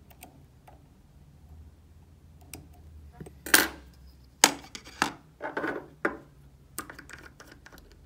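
Small hard objects and tools handled at a fly-tying bench: a string of sharp clicks and light clatters, the loudest about three and a half seconds in, over a faint low hum.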